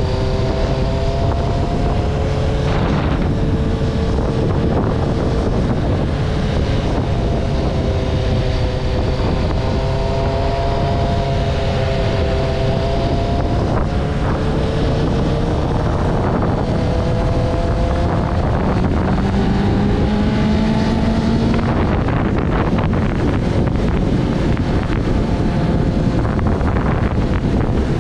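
Motorcycle engine running at a steady cruise, its pitch drifting gently up and down with speed, under loud wind buffeting on the microphone.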